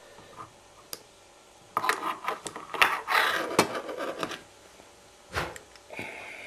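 Small metal clicks and scraping of a wire pick and a paperclip working inside a DDR handcuff's lock, with a rapid cluster of clicks and rubbing from about two to four and a half seconds in, then a single dull knock.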